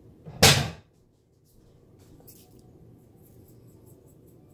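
A single loud thump about half a second in, then faint scattered clicks over low room noise.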